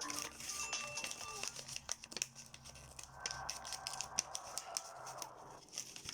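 Hand-crafting noises while a wallet is made: crinkling and rustling of the material with sharp snipping clicks, and a tearing sound lasting a couple of seconds in the middle. A few notes of music end about a second and a half in.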